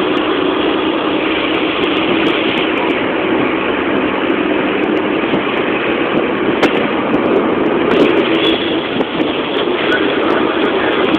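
Steady engine and road noise of a moving vehicle heard from inside while it drives.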